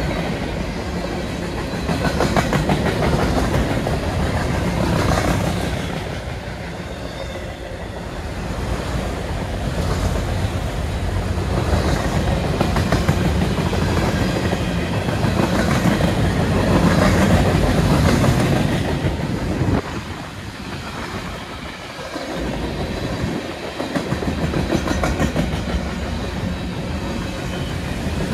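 Freight cars of a CN manifest train rolling past close by, boxcars and then empty centerbeam flatcars, their wheels clicking steadily over the rail joints.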